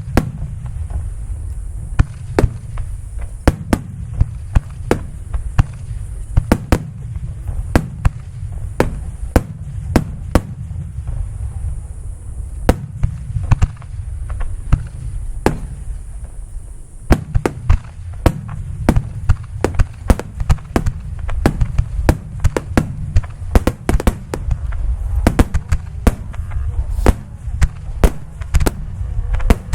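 Fireworks display: a dense, irregular barrage of sharp shell-burst cracks, several a second at times, over a continuous low rumble.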